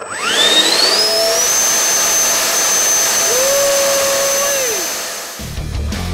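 Freewing F-15C Eagle's 90mm electric ducted fan, driven by a brushless inrunner motor, spooling up with a rising whine and a rush of air, holding a steady high whine, then winding down about five seconds in. Intro music with a heavy beat comes in near the end.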